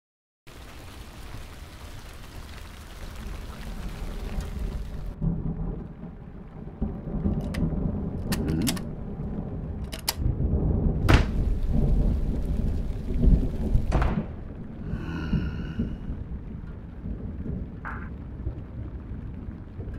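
Thunderstorm. A steady hiss of rain for the first few seconds gives way to deep rolling thunder with several sharp cracks. Near the end there is a short ringing sound and then a light tap.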